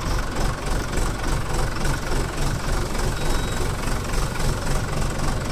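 Tractor diesel engine running steadily with an even throb, heard close up from the operator's seat.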